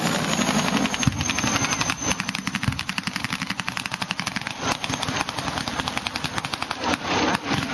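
Sustained rapid automatic gunfire, a rattle of many sharp shots a second with no break, from a mock ground attack. A faint high whine falls slightly in pitch over the first couple of seconds.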